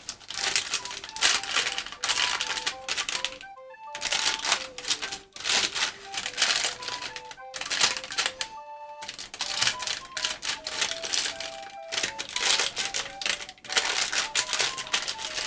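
Wooden spatula pressing down and cutting through a slab of sunflower-seed kozinaki on parchment paper: repeated bursts of crisp crackling and rustling as the seeds and paper give under it. A light melody plays in the background.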